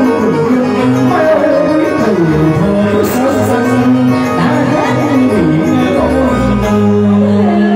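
A man singing a Vietnamese song through a microphone and PA over live band accompaniment.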